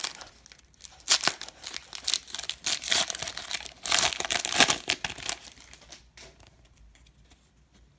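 Crinkly wrapper of a 2018 Panini Diamond Kings baseball card pack being crumpled and torn open by hand, a busy irregular crackling that dies down after about five and a half seconds.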